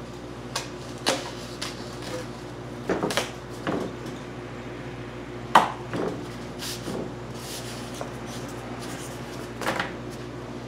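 Foam mat tiles and a utility knife being handled on a wooden board: scattered light taps and knocks, with one sharp click about five and a half seconds in, over a steady low hum.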